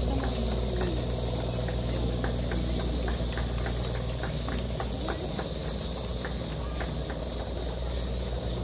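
An engine running steadily at idle, a low even hum, with faint voices and scattered light clicks over it.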